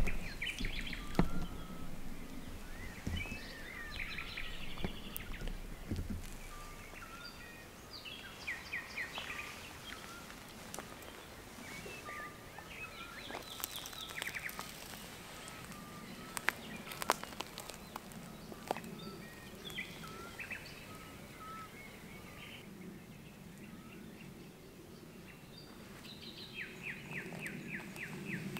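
Several wild birds singing, overlapping chirps and trills, with a fast run of repeated notes near the end. Scattered footsteps and knocks stand out, most of them in the first few seconds.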